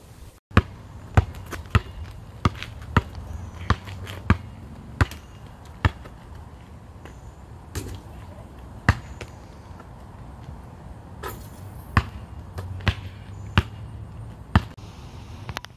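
Basketball bouncing on an asphalt court. There is a steady dribble of roughly one and a half bounces a second for the first six seconds or so, then only an occasional single bounce.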